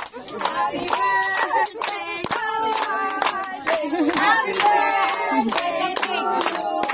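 A small group of people singing the birthday song together while clapping along in a steady beat.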